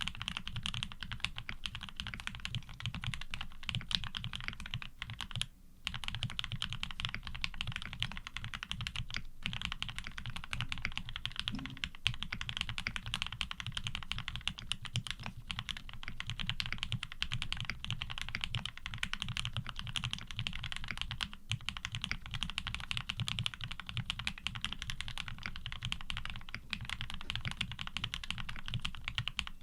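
Fast continuous typing on a custom 7V mechanical keyboard with lubed Gateron Ink Black linear switches and GMK keycaps: a dense stream of deep keystroke clacks, with a brief pause about five and a half seconds in.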